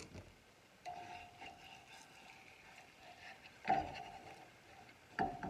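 A spatula scraping and knocking against a nonstick frying pan as it is worked under the edges of a frying egg, with two sharper knocks about three and a half and five seconds in.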